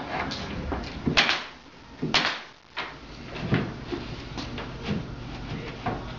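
Sharp wooden knocks and clatter of cabinet parts being handled and fitted together during assembly, the two loudest about one and two seconds in, then smaller knocks scattered after.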